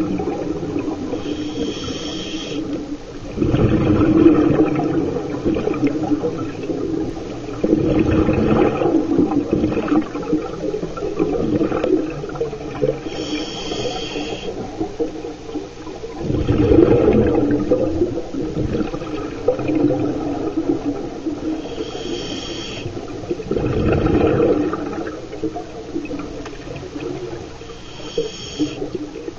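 Underwater scuba breathing through a diver's regulator: short hissing inhalations with a faint banded whistle, each followed by a rush of exhaled bubbles, repeating several times at a slow, relaxed pace.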